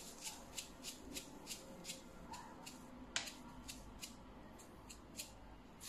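Faint light ticks and crinkles, about three a second, from a plastic seasoning bag being handled and tipped over a glass bowl.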